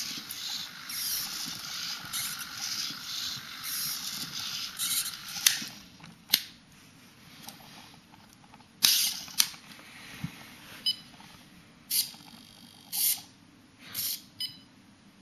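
Hobby servo motors of a six-legged walking robot whirring in short high-pitched bursts as the legs move, busy and nearly continuous at first, then in separate spurts. A few sharp clicks come about halfway through.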